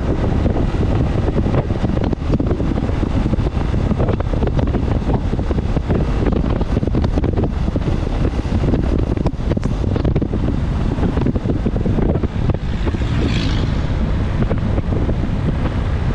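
Wind rumbling on a GoPro's microphone while riding a motorcycle on a wet road. The steady noise runs throughout, with a brief hiss about thirteen seconds in.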